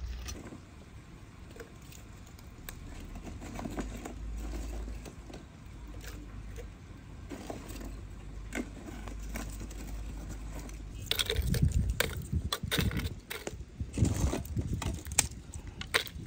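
Lumps of charcoal clinking and clattering as they are taken from a bucket and dropped into a small clay stove, with a run of sharp knocks in the last few seconds.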